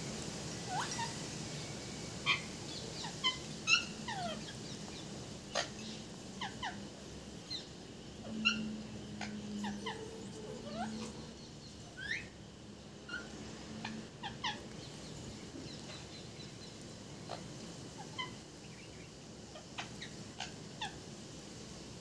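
Pet parrot making short, scattered chirps and squeaks, many sliding quickly up or down in pitch, with a few sharp clicks among them.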